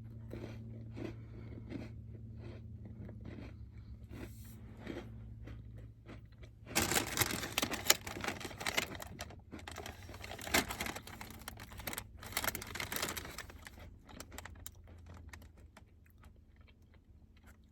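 Crunching and crinkling close to the microphone: a Girl Scout s'mores cookie being chewed and its plastic packaging handled. Soft scattered crunches at first, then a louder, denser crackling stretch in the middle that tapers off, over a steady low hum.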